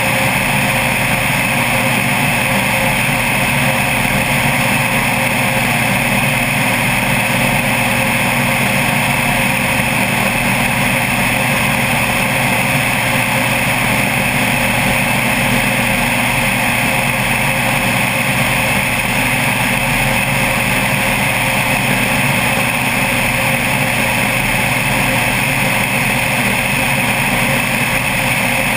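Single-engine bush plane's engine and three-bladed propeller droning steadily in cruise flight, with wind rumbling on the externally mounted microphone.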